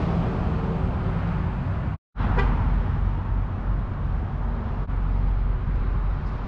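Steady rumble of road traffic and vehicles, cutting out briefly for a moment about two seconds in.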